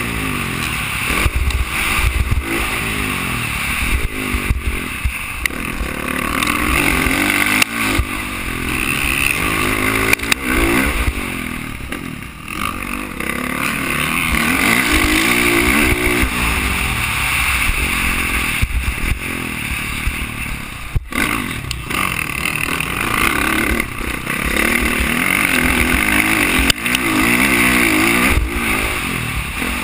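Motocross dirt bike engine revving up and down over and over as the rider works the throttle around a dirt track, heard from the rider's helmet camera. The engine eases off briefly about twelve seconds in, and there is a short sharp break near the middle.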